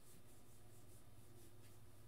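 Faint, soft swishes of baseball cards sliding against each other as a stack is thumbed through, over a low steady hum.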